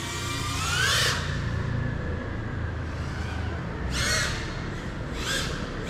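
A crow cawing: short harsh calls about a second apart, starting about four seconds in, over a steady low rumble. A brief rising whine comes about a second in.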